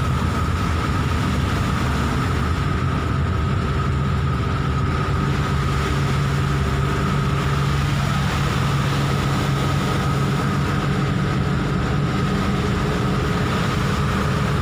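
Steady engine hum and road noise inside the cabin of a vehicle driving on a rain-soaked road, with a constant higher whine running through it.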